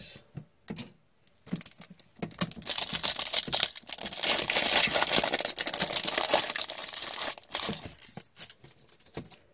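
A foil wrapper of a 2019-20 O-Pee-Chee Platinum hockey card pack being torn open and crinkled by gloved hands. It starts about a second and a half in, is loudest through the middle, and dies away near the end.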